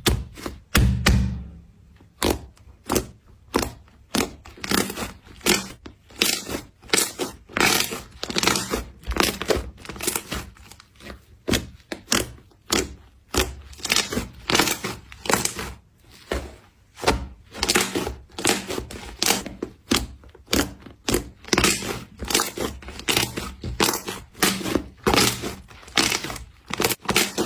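Slime being squeezed and pressed by hand, giving an irregular run of short crackling, popping clicks, a few a second.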